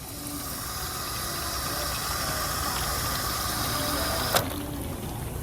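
Kohler Highcliff toilet flushing: water rushing steadily into the bowl, with a sharp click about four seconds in.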